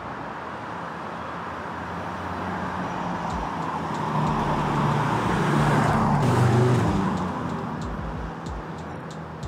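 2022 Skoda Kodiaq RS with its 2.0 TSI petrol four-cylinder driving past: engine and tyre noise swelling as it approaches, loudest about six seconds in, then fading as it moves away.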